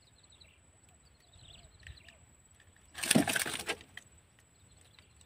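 A loud, brief clatter lasting under a second, about three seconds in, as a lure's hooks are worked free of a snakehead's mouth with pliers on a wooden boat floor. Faint high chirps, like small birds, come before it.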